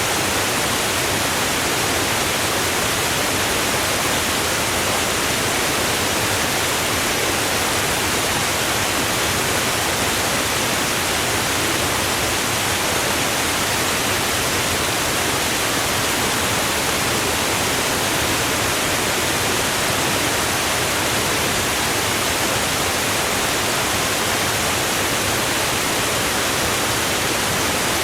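Waterfall: water falling continuously in a steady, even rush, with no changes or separate splashes.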